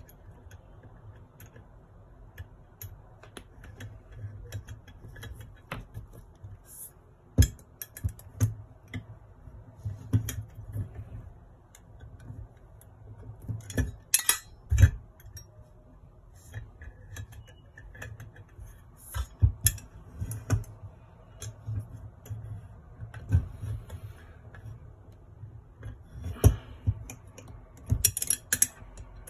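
Small metal parts of a brass Stirling engine model kit being handled and screwed together: irregular clicks, taps and light scrapes of metal on metal as a screwdriver turns small screws into the frame.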